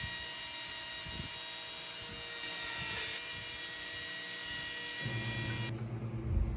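Wen handheld rotary tool motor running at high speed with a steady whine, switched off about five and a half seconds in. A low hum sets in just before it stops, and a low thump comes near the end.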